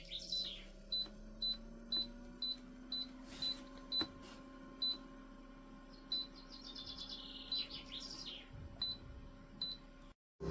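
A run of short, high electronic beeps, roughly two a second, with chirping trills near the start and again around seven seconds in. Under them a faint low hum rises in pitch over the first couple of seconds and then holds steady.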